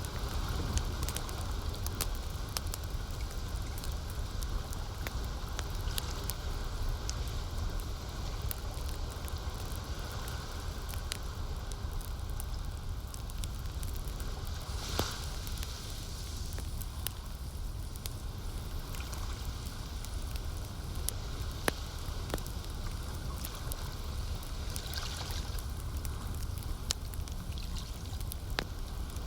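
Campfire crackling, with scattered sharp pops and a couple of brief hissing flare-ups, over a steady low rumble and the wash of lake water.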